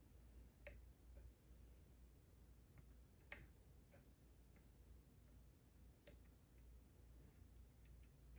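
Faint, scattered metallic clicks of a pick working the pins of a Goal D9 nine-pin dimple lock, over a low steady hum. Three clicks stand out, about a second in, a little past three seconds and around six seconds, with a few softer ticks near the end.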